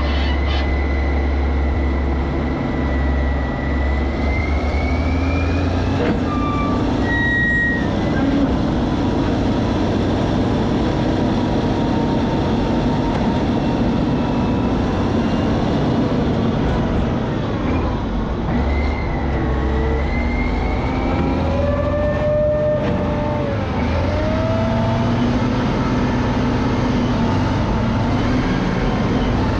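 Heavy diesel engines of Caterpillar 637C scrapers running steadily under load, a dense rumble with whining tones that rise and fall slowly.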